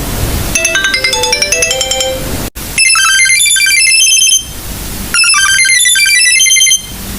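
Sony Ericsson phone ringtones: a short electronic melody repeats, then cuts off suddenly about two and a half seconds in. A different, higher-pitched ringtone follows and plays its phrase twice.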